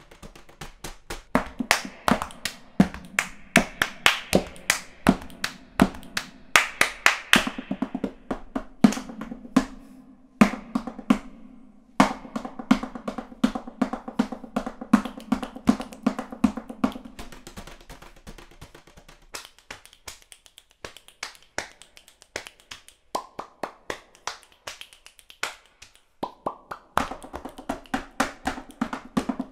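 Accordion music over a fast, crisp tapping percussion rhythm. About two thirds of the way through, the accordion chords fall away and the tapping carries on nearly alone, until the accordion comes back a few seconds before the end.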